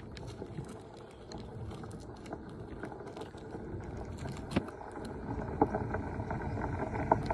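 Wind buffeting a phone microphone left on the ground, an uneven low rumble, with a few light clicks and taps.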